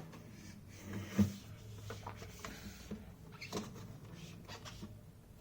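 A second-hard-drive caddy being slid into a laptop's optical drive bay: light scraping and scattered small clicks, with the sharpest knock about a second in.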